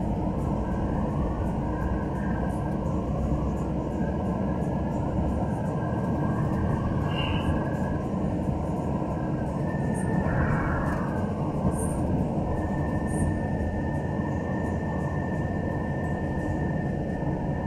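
Steady road and engine noise heard from inside the cabin of a moving vehicle.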